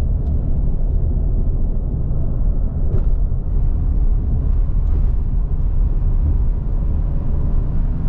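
Steady low road rumble of a car being driven, heard from inside the cabin.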